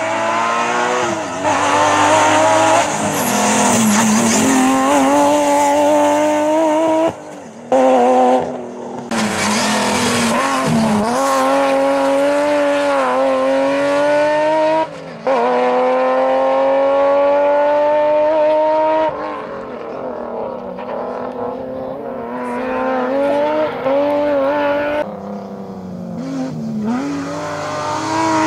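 Race car engine driven hard: the revs climb and drop through the gears, with short cut-outs at the shifts about seven and fifteen seconds in. In the last third the engine runs at lower revs, rising and falling with the throttle through the turns.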